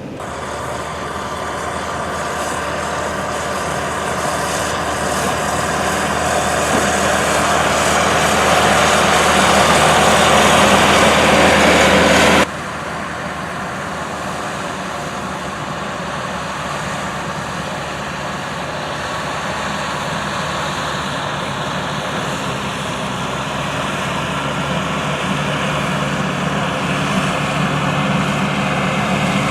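Steady vehicle engine and road noise of traffic driving on a snowy road. It grows louder, breaks off abruptly about twelve seconds in, and another stretch of steady vehicle noise follows and slowly builds.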